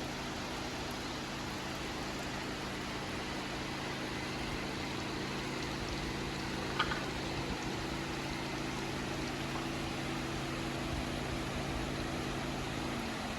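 Steady rushing noise with a low machine hum, like a motor or fan running, and one brief high chirp about halfway through.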